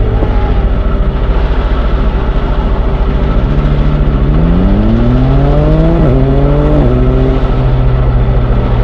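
Train's diesel engine running under a steady low rumble, its note rising as it revs up from about three seconds in, then falling back sharply twice before settling to a steady tone.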